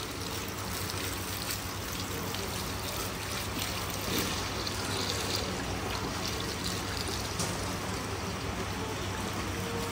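Water from a hose pipe pouring steadily into a large cooking tub of browned beef and onions.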